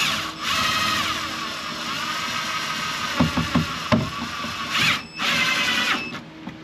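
Power drill/driver driving screws, its motor whining with the pitch sagging as it bears down on the screw. There are a few knocks partway through, then a brief stop and a second short burst of driving.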